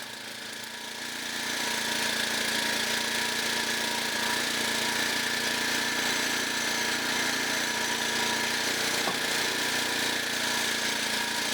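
Portable band sawmill's small gasoline engine running steadily. It grows louder over the first second or two, then holds an even hum.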